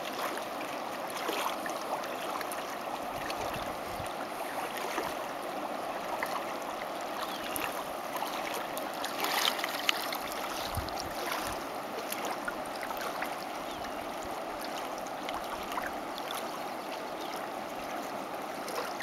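Colorado River water running and lapping in the shallows, a steady rushing. A few brief clicks and knocks about halfway through come from a plastic water bottle being handled.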